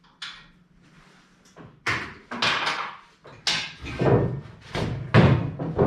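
A run of about eight clunks and scraping knocks, louder and closer together in the second half, as parts and tools are handled while the Jeep TJ's tire-carrier rear bumper is taken off.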